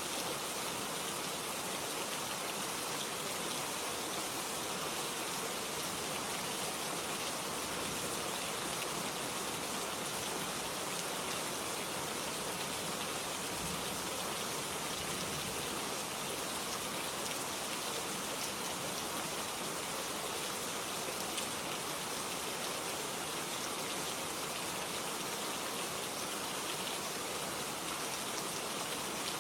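Steady rainfall: a dense, even hiss of rain falling and hitting surfaces, with no change in strength.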